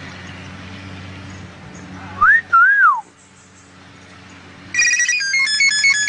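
Common hill myna mimicking a cell-phone ringtone: a loud whistled note swooping up and down about two seconds in, then from about five seconds a fast run of short beeping notes stepping between pitches like a phone's ringtone melody.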